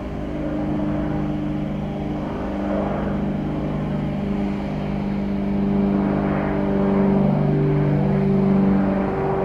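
Aircraft engines passing close by, growing steadily louder, with several steady humming tones over a broad rushing noise.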